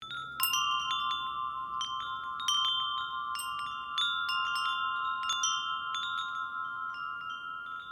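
Chimes ringing: bell-like metal tones struck at irregular moments, each ringing on over a steady cluster of ringing tones.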